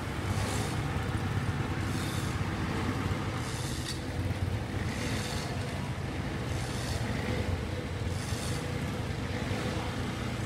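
Komatsu PC120 hydraulic excavator's diesel engine running steadily, with a high hiss that swells and fades about every one and a half seconds.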